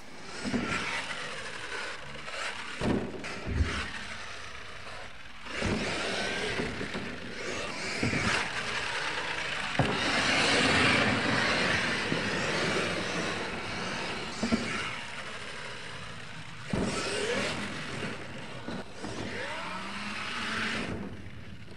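RC monster truck driving hard on a dirt track: its motor whining up and down in pitch and tyres scrabbling over dirt, with sharp knocks from jumps, landings and tumbles every few seconds.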